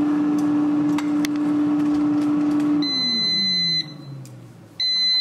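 Gourmia air fryer's fan running with a steady hum, then falling in pitch as it winds down about three seconds in. Over it the appliance sounds its end-of-cycle alert: two long high-pitched beeps, the cooking finished.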